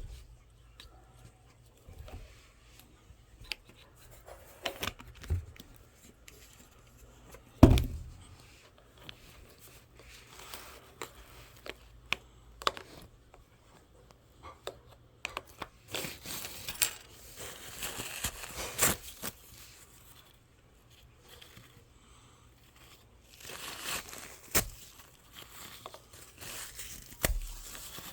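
Intermittent rustling and crinkling, like paper or plastic being handled, with scattered clicks and taps. There is one sharper knock early on, and two longer stretches of rustling, one about halfway through and one near the end.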